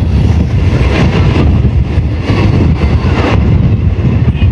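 Passenger train running, a loud steady rumble with wind buffeting the microphone.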